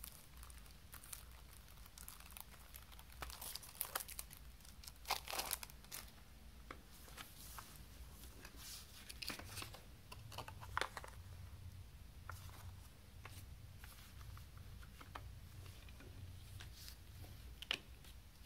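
Cellophane shrink wrap on a CD jewel case torn open and peeled off, crinkling, with clicks from the plastic case being handled and opened; a single sharp click near the end.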